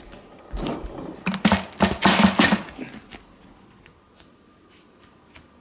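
A rapid, clattering run of knocks and scrapes on a hardwood floor, starting about half a second in and dying away about three seconds in, followed by a few faint ticks.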